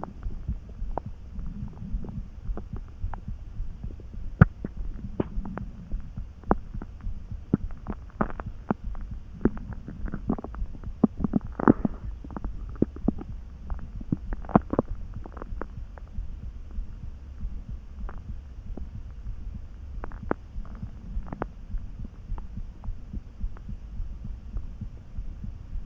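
Hungry human stomach gently churning: many quick gurgling pops and squelches, busiest around the middle, over a steady low hum.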